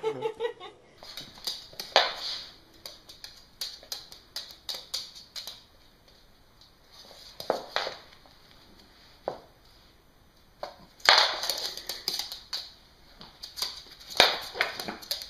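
Scuffling and scattered clicks and knocks from a dog playing with a baby on a hardwood floor, with a few short noisy rushes.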